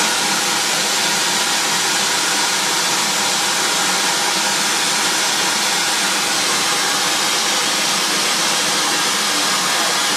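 Live-steam scale model of a Pennsylvania H-10 2-8-0 locomotive venting steam in a loud, steady hiss.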